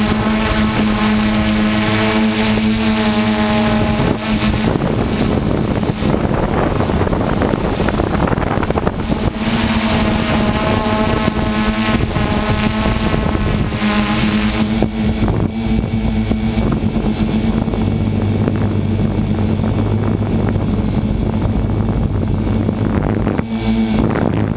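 A hexacopter's electric motors and propellers running in flight, heard close up from the camera mounted on it: a steady hum with several tones over a rushing noise, the tones shifting in pitch as the throttle changes. About fifteen seconds in, the higher tones fade and a lower hum takes over.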